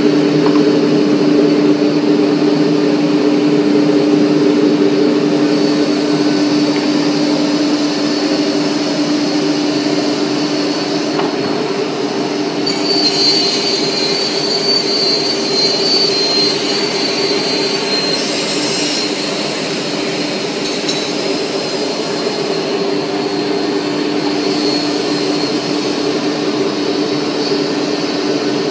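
Semi-automatic panel saw (beam saw) running with a steady motor hum. About 13 seconds in, a higher whine and hiss joins for about five seconds, then drops back.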